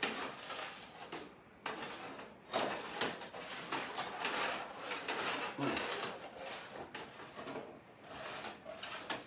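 Small metal drawers of a steel parts cabinet being slid open and shut one after another while someone rummages through them, with repeated clicks, knocks and the rattle of the contents.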